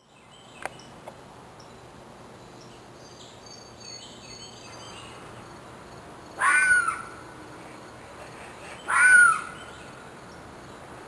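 A loud animal call, heard twice, each about half a second long and about two and a half seconds apart, over faint bird chirps.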